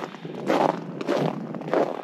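Footsteps crunching through crunchy, frozen snow, about one step every half second to two-thirds of a second.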